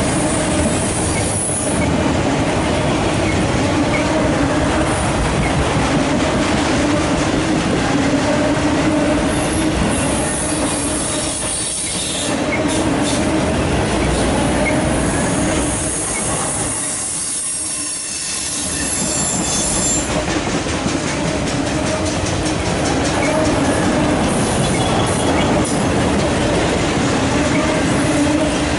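Loaded autorack freight cars rolling past close by on steel wheels: a loud, steady rumble and clatter with a ringing tone held over it. The sound eases briefly twice, about twelve and eighteen seconds in.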